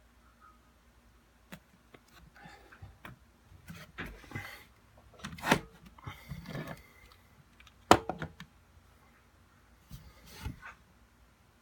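Irregular rustling and handling noises with scattered clicks and two sharp knocks, the louder about two-thirds of the way through, as trading cards and their packaging are handled.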